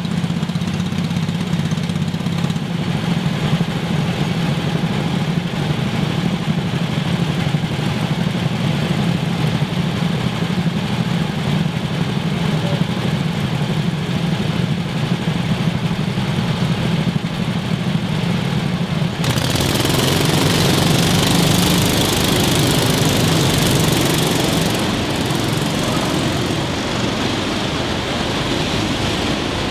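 Go-kart engines idling steadily with a low, even note. About two-thirds of the way through, a loud even rushing noise comes in suddenly and stays, and the engine note sinks under it.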